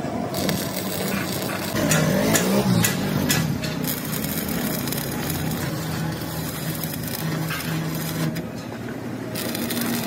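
Stick (shielded metal arc) welding on steel plate: the electrode's arc crackling and sizzling steadily.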